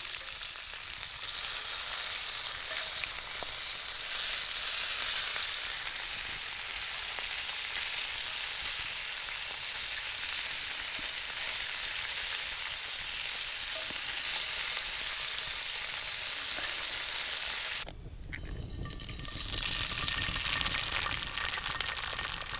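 Bacon frying in a pan, a steady crackling sizzle. About eighteen seconds in the sizzle cuts off abruptly and a quieter, lower sound follows.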